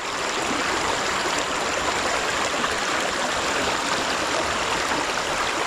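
Steady rushing of a creek running high after heavy rain.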